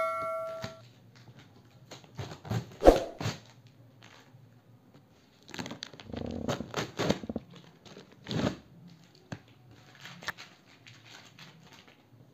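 Cardboard shipping box being torn open by hand: the tear strip and packing tape ripped off in several rasping pulls, with scraping and handling of the cardboard between them. A bell-like chime tails off at the start.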